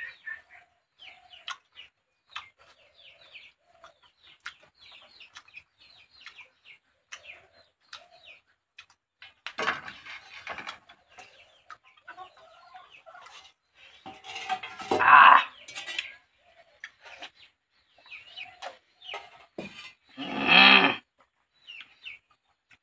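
Chickens clucking, with short calls repeating all the way through and a few louder sounds around the middle and near the end.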